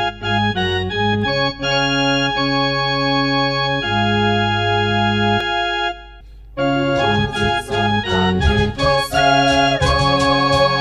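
Instrumental introduction of a church song: held organ-style keyboard chords, a brief break about six seconds in, then a drum beat and moving keyboard lines come in.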